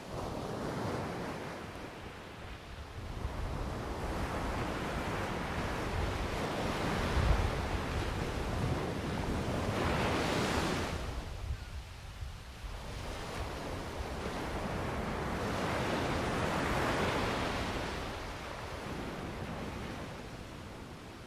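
Ocean waves breaking and washing on the shore below, swelling and receding in slow surges, with wind buffeting the microphone.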